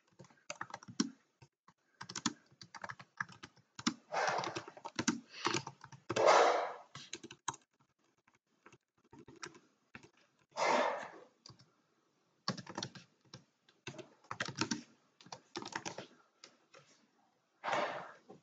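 Typing on a computer keyboard: quick runs of key clicks with short pauses between words, and a few louder half-second noises among them.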